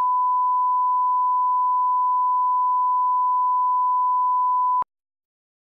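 Steady 1 kHz broadcast line-up test tone, the reference tone that goes with colour bars at the head of a tape, a single unwavering pitch that cuts off suddenly with a click near the end.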